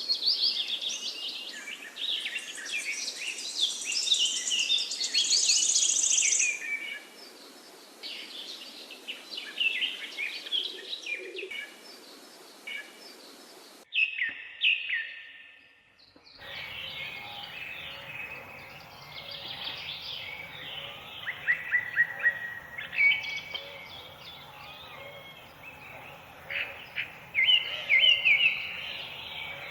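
Many small birds chirping and singing at once, with dense overlapping calls. The recording cuts abruptly about halfway through to another bird chorus over a faint steady background.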